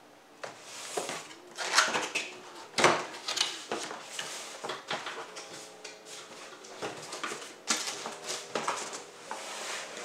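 Cardboard box handled on a countertop: irregular scraping, rustling and knocking as the carton is turned, tipped over and its flaps opened, with sharper knocks about two and three seconds in.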